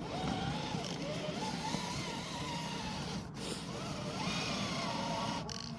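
Electric motor and drivetrain of a 1/6-scale RC car running on a snowy road, its whine rising and falling with the throttle over a steady rumble of gears and tyres.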